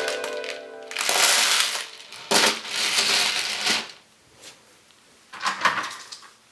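Dry elbow macaroni and beans crunching and rattling as a plastic toy dump truck is pushed and shuffled through them, in several short bursts with brief quiet gaps.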